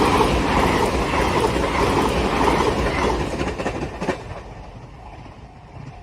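Kamome limited express electric train passing at speed over a level crossing: a loud rush of wheel and air noise with a few rail-joint clacks. It falls away sharply about four seconds in as the last car clears.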